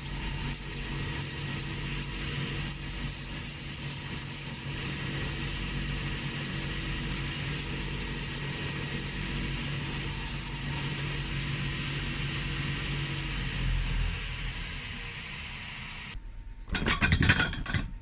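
Cobbler's finishing machine running with a steady motor hum, its abrasive wheel buffing the worn leather sole and heel edge of a shoe with a gritty sanding hiss. The machine winds down near the end, and a few handling knocks and rustles follow.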